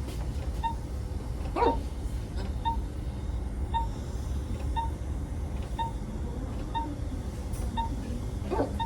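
A sedated patient hiccuping twice, about seven seconds apart: a short, sharp hic each time, from hiccups brought on by midazolam. Under it a patient monitor beeps steadily about once a second with the pulse.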